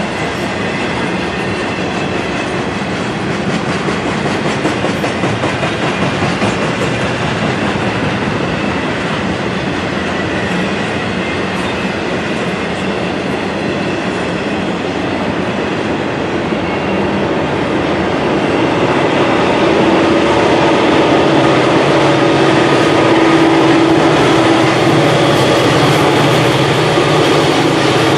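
Loaded double-stack intermodal well cars rolling past with a steady rumble and clickety-clack of wheels on rail. In the last ten seconds a deeper, steady engine sound grows louder as the rear helper set of EMD SD40E diesel locomotives approaches.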